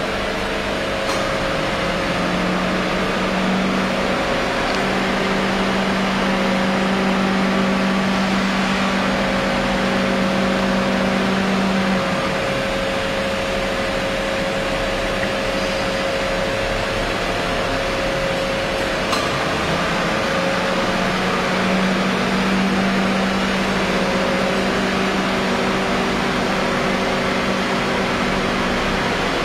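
A steady machine hum, with a low droning tone that stands out for several seconds at a time and then drops back.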